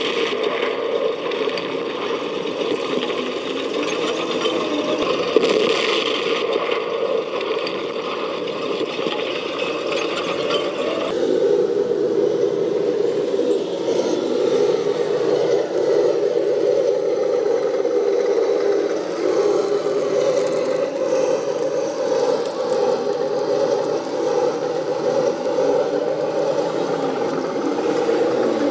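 RC model tanks driving, with a steady whine from the electric drive motors and gearboxes and a rattle of tracks. The sound shifts a little about eleven seconds in.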